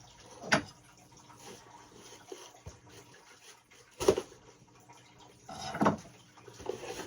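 Subscription box being handled and opened: two sharp knocks, about half a second in and about four seconds in, then a short rustling scrape near the end.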